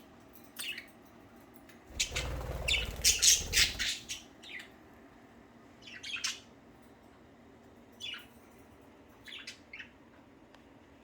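Pet budgerigars chirping and squawking in short, scattered calls. About two seconds in comes a louder flurry of squawks lasting about two seconds, over a low rumble.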